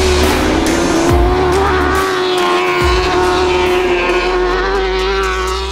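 BMW M1000RR superbike's inline-four engine running at high revs, its pitch holding nearly steady.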